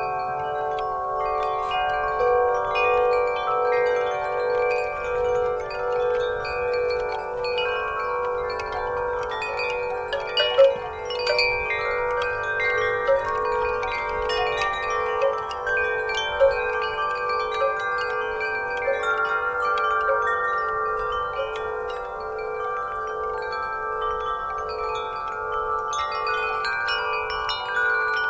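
Wind chimes ringing in the breeze: many overlapping sustained tones, renewed by frequent light strikes, with the lowest tone pulsing steadily.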